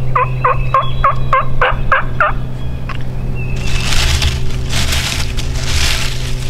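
Turkey calling: a run of about eight evenly spaced, downward-sliding notes in the first two and a half seconds, followed by a longer, harsher, noisier stretch.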